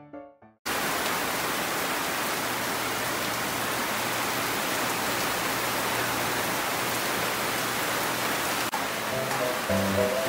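Heavy rain pouring steadily on corrugated metal roofs. It cuts in abruptly about a second in as piano music fades out, and soft piano music comes back in under the rain near the end.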